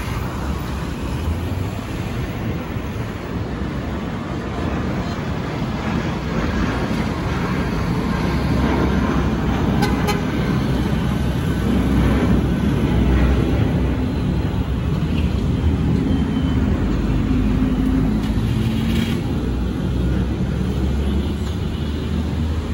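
Jet airliner passing overhead after take-off: a steady low engine rumble that swells to its loudest about halfway through, then slowly fades.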